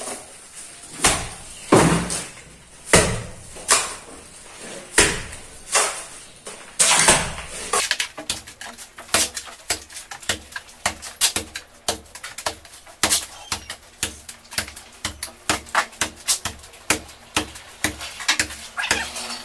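Cement plaster mortar being thrown by trowel onto a bare brick wall: several loud wet slaps in the first half, then a quicker run of short slaps and trowel clicks, a few a second.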